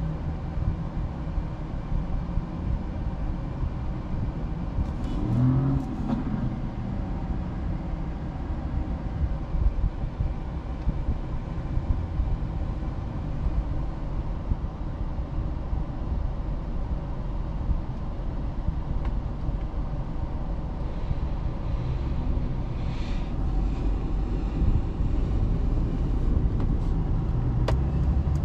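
Cabin noise inside a 2022 Mercedes-Benz C-Class with a 2.0-litre engine, a steady low engine and road rumble that grows a little louder near the end.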